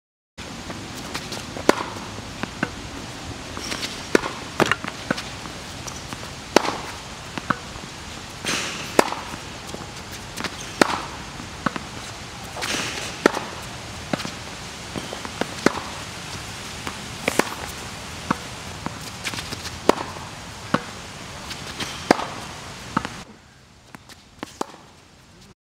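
Tennis balls struck by a racket and bouncing on a hard court during a groundstroke rally: sharp pops every second or two, with softer scuffs in between.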